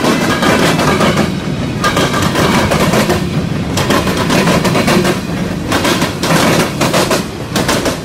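Freight train cars rolling past close by: steel wheels clatter in fast, loud clacks and bangs on the track over a steady rumble.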